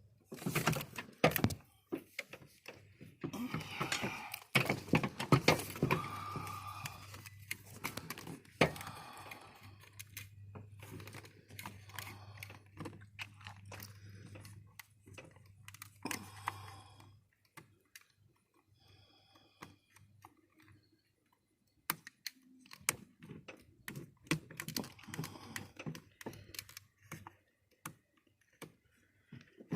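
Plastic wiring connectors and door parts being worked apart by hand, with scattered clicks and rattles, over a low steady hum for the first half. The handling pauses for a few seconds past the middle, then the clicking resumes.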